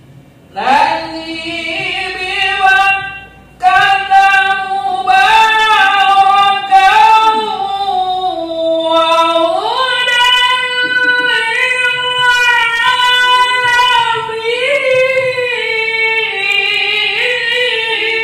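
A man's melodic Arabic Qur'an recitation (tilawah), chanted at a high pitch in long, ornamented held phrases, with short breath pauses about half a second and three and a half seconds in and the melody stepping up higher about ten seconds in.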